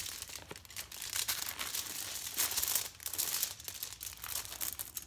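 Paper and foil wrapping crinkling and rustling under hands as gauze dressing is handled around a foot: a continuous stream of small, quick crackles.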